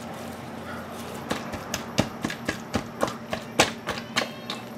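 Spatula knocking and scraping against a stainless steel mixing bowl as a wet raw meatloaf mixture is stirred. Irregular knocks come a few a second, starting about a second in.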